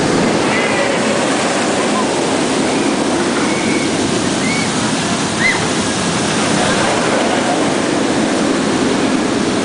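Steady roar of a steel inverted roller coaster train (Alpengeist) running over its track overhead, with a few faint, short high cries above it.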